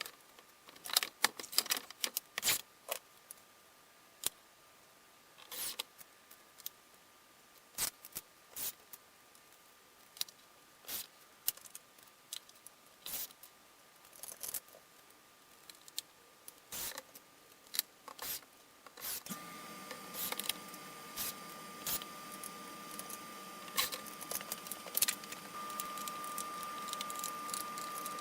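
Small workshop handling noises: scattered clicks, taps and light knocks of parts and tools being picked up and set down. About two-thirds of the way through a steady machine hum comes in under them.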